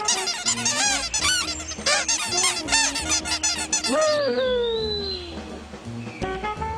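Cartoon birds' rapid squawking and chirping chatter, many short rising-and-falling calls packed together, with a long falling squawk about four seconds in.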